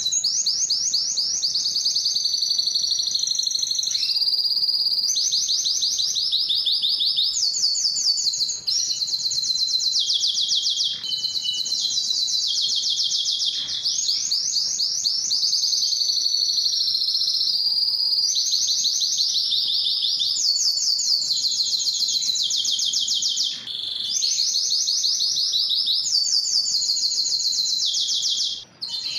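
Canary singing a long unbroken song of rapid trills, one high phrase running into the next, with only a few brief breaks.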